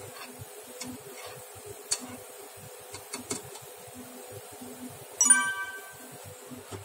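Broth bubbling at the boil in a pan, with small clicks from a metal skimmer. About five seconds in, a metal utensil strikes the pan with a sharp ringing clink.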